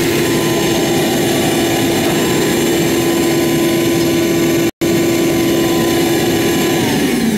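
Shop vacuum running steadily with a strong motor hum and a high whine, sucking dirt and nesting debris out of the base of an AC condenser unit. Near the end its pitch starts to fall as the motor winds down. The sound drops out for an instant a little past halfway.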